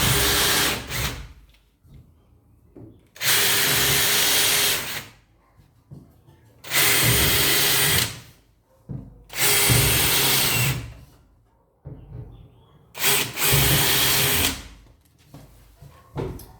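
Power drill-driver running in repeated bursts of about a second and a half, about every three seconds, typical of driving screws in one after another.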